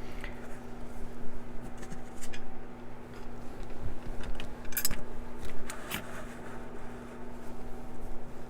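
Small metal clicks and scrapes of a pin-tumbler lock and metal hand tools being handled, a few sharp ticks standing out about five and six seconds in, over a steady low hum.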